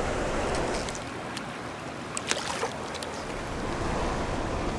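Creek water rushing over a cascade, a steady hiss, with a few short clicks and taps in the middle.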